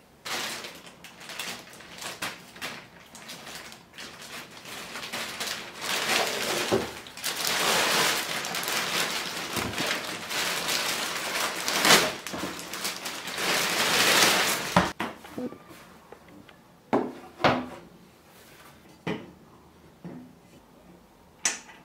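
Clear plastic bag crinkling and rustling as it is pulled off a plastic chair seat shell, loudest in the middle. It is followed by a few separate knocks as a black seat plate is set down onto the underside of the shell.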